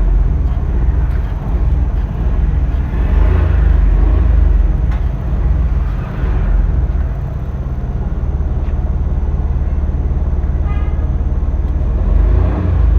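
Maruti car engine revving, the revs swelling and falling back several times with a steadier stretch of running in between.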